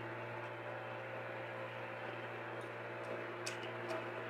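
Steady electrical hum with hiss, and a faint light tick about three and a half seconds in.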